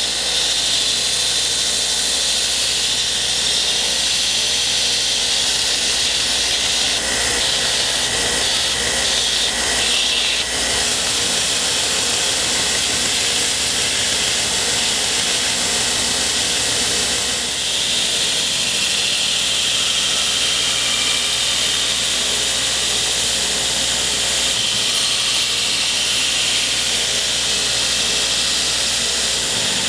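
A 2x72 belt grinder running with a 120-grit belt, grinding the bevels of a steel knife blade: a loud, steady, high-pitched hiss of abrasive on steel over the motor, with a few slight shifts in tone.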